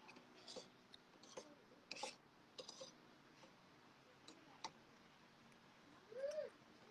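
Metal fork and spoon clinking and scraping on a ceramic plate: a handful of light, separate clicks. Near the end comes a short hum that rises and falls in pitch.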